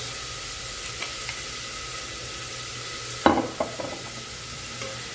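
Chopped garlic sizzling in olive oil in a pot, a steady frying hiss as the garlic browns, with one short knock about three seconds in.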